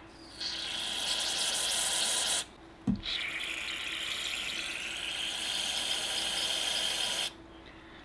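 Two long hisses of pressurised spray forced through a golf-cart carburetor's main jet, the first about two seconds long and the second about four, with a small knock between them. The steady flow through the jet shows it is not blocked.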